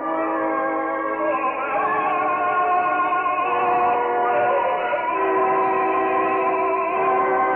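Orchestral zarzuela music in an old recording with nothing in the top range: held, sustained chords, with some lines wavering in vibrato.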